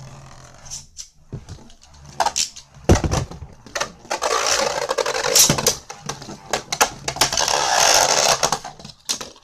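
Rock Dragon D5 Beyblade Burst top spinning in a plastic stadium, with scattered sharp clicks, a knock about three seconds in, and two long bursts of rasping noise.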